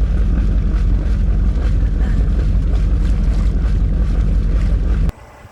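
Boat machinery running steadily during winterizing, a loud low rumble with a steady hum while antifreeze is pushed through the starboard side. It cuts off abruptly near the end.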